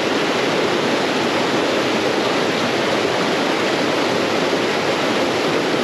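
Steady rush of creek water flowing over rocks, an even hiss with no breaks.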